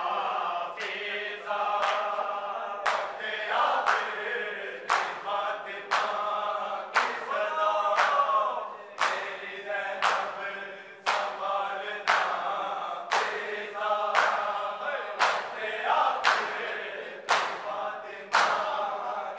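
A group of men chanting a Urdu noha together in mourning, while the crowd beats its chests in matam, sharp hand slaps landing in time at about one a second.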